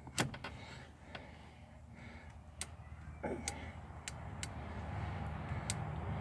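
Irregular clicks from the numbered combination wheels of a metal clutch lock being turned by hand, stiff because the bar is held under tension, over a low steady hum.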